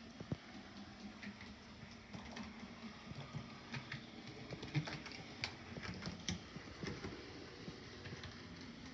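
Dapol model railcar running along the track, its wheels clicking irregularly over rail joints and trackwork, with a faint steady motor hum underneath. The clicks come thickest in the middle stretch.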